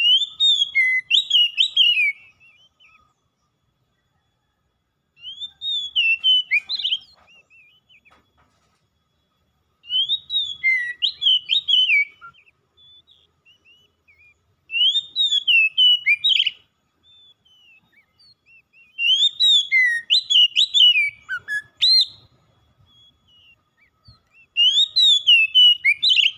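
Oriental magpie-robin singing: six short phrases of quick whistled notes sliding up and down, one about every five seconds, with quiet gaps between.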